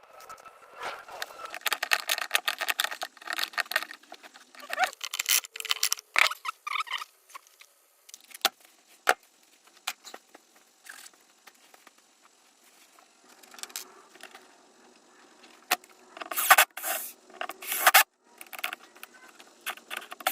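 Small metal hardware rattling and clinking as it is handled, in irregular bursts of quick clicks, heaviest near the start and again near the end.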